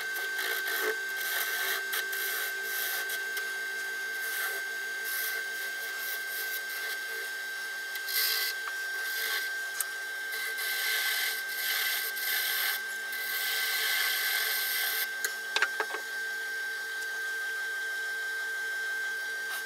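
Wood lathe running with a steady whine while a small homemade turning tool, re-ground from a worn 3/8-inch gouge, cuts a spindle of pallet wood in several hissing passes. The cutting stops about three quarters of the way through, with a couple of clicks, and the lathe runs on by itself.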